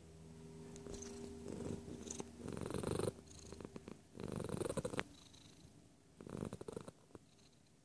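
Tabby house cat purring right at the microphone, the purr swelling in loud pulses about every two seconds with its breathing.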